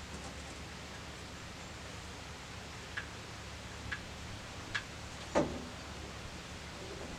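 Four light clicks or knocks a second or so apart, the last one the loudest, over a faint steady low hum.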